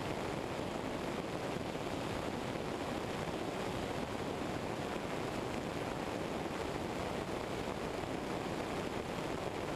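Steady rushing airstream over a wing-mounted camera on a Eurostar EV97 ultralight in cruise flight, an even noise with no distinct engine note.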